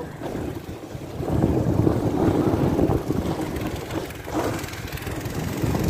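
Sled sliding down a snow slope: a rushing scrape over the snow with wind buffeting the microphone, rising sharply about a second in.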